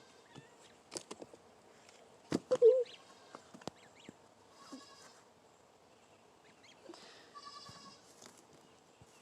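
Short farm-animal calls: a loud wavering call about two and a half seconds in, then two quick runs of rapid pulsed calls later on, with scattered clicks and knocks throughout.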